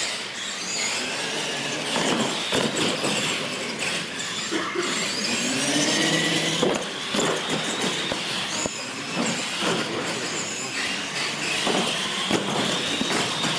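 Radio-controlled monster trucks racing: the high whine of their electric motors and gears, rising and falling as they speed up and slow, with scattered knocks.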